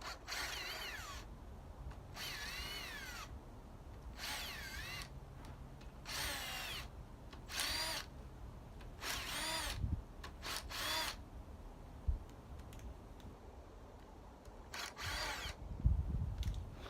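Cordless drill spinning out the already-loosened rocker arm bolts on a 5.3 LS V8, in about ten short runs whose pitch rises and falls as the trigger is worked. A few dull knocks come near the end.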